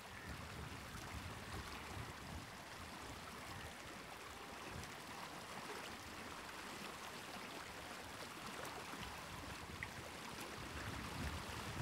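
Soft, steady ambience of gently moving water, an even wash with a low rumble beneath it.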